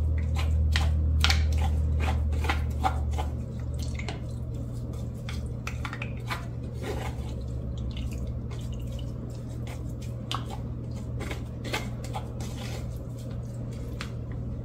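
Wooden spoon scraping and tapping against a fine-mesh metal strainer as blended ginger-lemon pulp is pressed through it, in irregular clicks and wet squishes. A low steady hum runs underneath and drops in level about three and a half seconds in.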